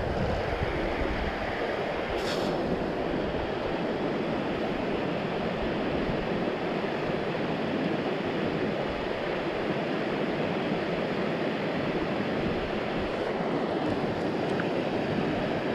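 Steady rush of a small stream's running water, with one brief faint tick about two seconds in.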